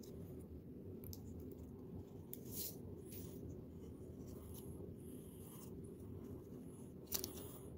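Light scratching and small clicks from handling laptop parts while a battery is fitted back into a ThinkPad laptop, with one sharper click near the end, over a steady low hum.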